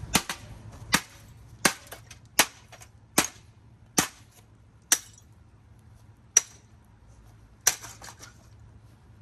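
A run of about nine sharp metallic blows as a Hampton Bay ceiling fan's motor is smashed. They come roughly one every three-quarters of a second at first, then further apart toward the end.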